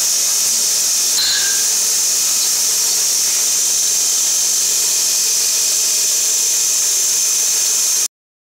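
Vacuum bottle-filling machine running: a steady, loud high hiss over a faint low hum, with a brief squeak about a second in. It cuts off suddenly near the end.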